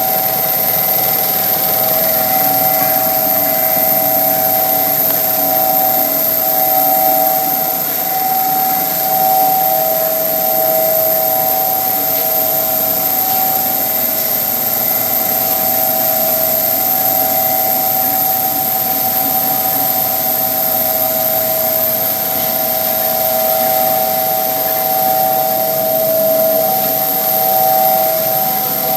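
Sintering vacuum atmosphere furnace running: a steady machine whine of two close tones over a continuous hiss.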